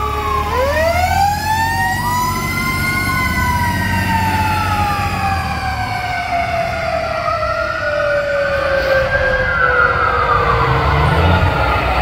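Fire truck's mechanical Q siren winding up sharply in pitch and then slowly winding down over several seconds. A second siren wail rises and falls over it, with the truck's engine rumbling underneath as it pulls away.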